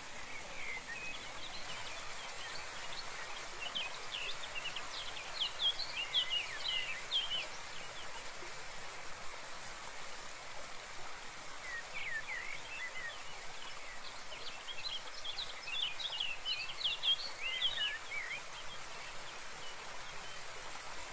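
Steady rush of running water, with small birds chirping and twittering over it in two spells of quick calls, one in the first half and a longer one in the second.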